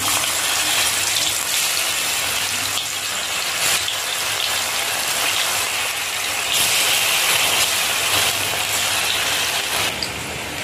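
Pumpkin-seed paneer pieces sizzling as they fry in hot oil in an aluminium kadai. The steady hiss starts as the first piece goes in and grows louder for a couple of seconds past the middle.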